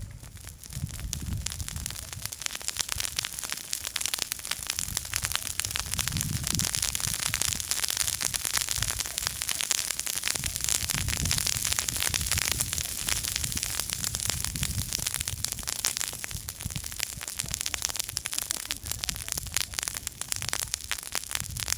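Small campfire crackling, a dense run of fine pops and snaps with a low rumble that swells and fades now and then.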